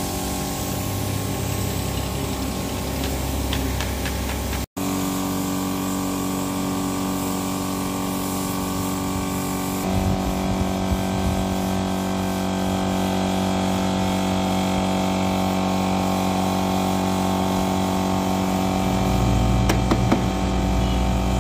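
Small engine-driven air compressor running steadily, feeding a spray gun that hisses as it sprays brown lacquer onto a wooden chair. The sound breaks off for an instant about five seconds in.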